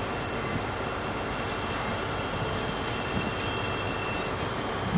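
Steady low rumble of trains standing at the station, with a faint high whine that fades out about four seconds in and a short thump near the end.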